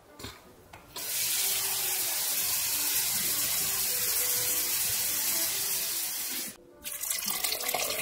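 Kitchen faucet running a steady stream into a glass measuring cup. It starts about a second in and is shut off suddenly near the end. Then comes uneven splashing as the water is poured from the cup into a stockpot of broth.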